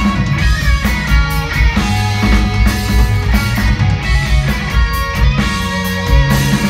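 Rock band playing live: electric guitars, bass and drums with a steady beat.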